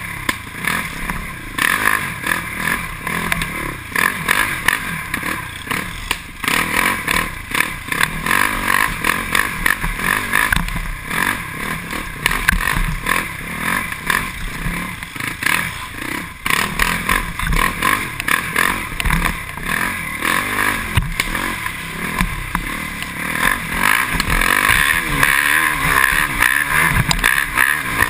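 Can-Am DS450X MX quad's single-cylinder four-stroke engine revving up and down under constant throttle changes while riding a rough trail. It runs louder and more steadily near the end as the quad opens up onto open ground.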